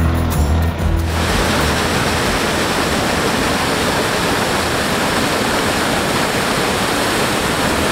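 Steady rush of a small creek waterfall pouring over rock ledges. About a second in, background music with heavy bass notes cuts off and the water is heard alone.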